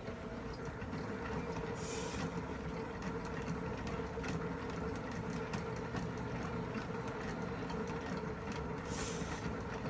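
Hand-cranked mini manual washing machine being turned, its drum rotating with a steady whir and light rattling clicks. A brief swish comes about two seconds in and again near the end.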